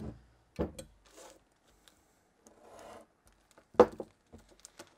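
Carburetor parts and a screwdriver being handled on a wooden workbench. There is a knock about half a second in and a sharper, louder knock near four seconds as they are set down, with a plastic parts bag crinkling between them and small ticks of parts.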